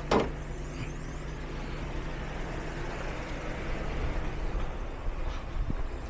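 A single sharp knock right at the start, then the steady low hum of a vehicle running.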